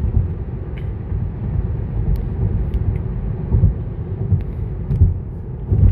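Low, steady road and tyre rumble heard inside the cabin of a Tesla Model 3 cruising at about 65 mph, with a few louder bumps.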